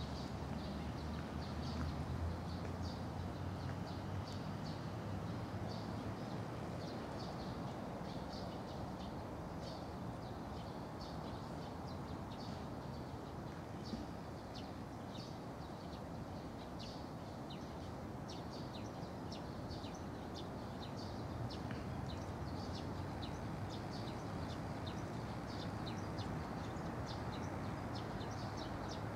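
Small birds chirping in quick short high notes, several a second and on and off throughout, over a steady low rumble of outdoor background noise.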